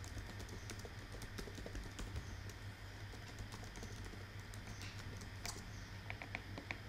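Computer keyboard being typed on: irregular light key clicks, with a quicker run of keystrokes near the end, over a faint steady low hum.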